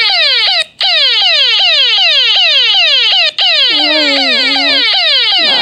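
Electronic alarm made of rapid falling pitch sweeps, about three a second, cutting out briefly twice.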